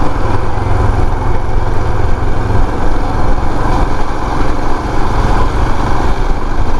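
Royal Enfield Himalayan's single-cylinder engine running steadily while the motorcycle is ridden at road speed, mixed with a steady rush of wind on the microphone.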